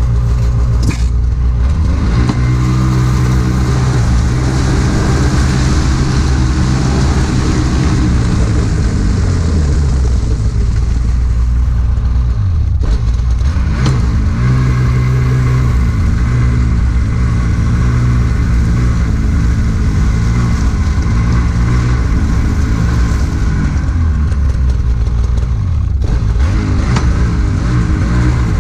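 Snowmobile engine running hard with its track turning over ice and snow, the engine pitch rising and falling several times.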